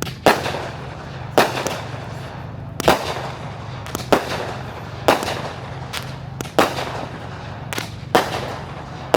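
Aerial fireworks shells bursting in succession, about seven sharp booms at uneven gaps of one to one and a half seconds, each trailing off in a rolling echo.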